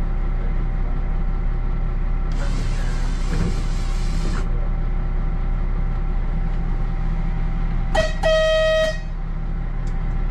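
A train horn sounds about eight seconds in: a short blip, then one pitched blast held for under a second. Underneath is the steady drone of the train running, with a hiss for about two seconds starting about two seconds in.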